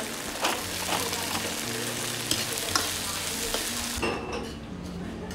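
Food sizzling in hot oil in a wok as a metal spatula stirs it, with several sharp clicks of the spatula against the pan. The sizzle drops away suddenly about four seconds in.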